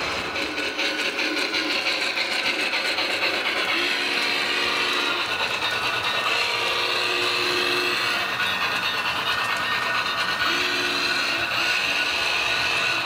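An HO scale model train running along the layout track with a steady mechanical whir. Three short two-note tones sound at about 4, 7 and 11 seconds.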